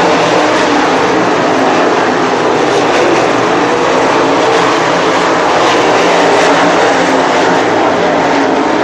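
A field of 360 winged sprint cars racing, their 360 cubic-inch V8 engines making a loud, continuous blare whose pitch wavers up and down as the cars go around the track.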